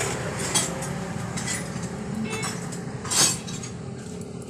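Motorcycle fork springs and metal parts clinking against a steel basin as they are handled, a few light metallic clinks with the loudest about three seconds in.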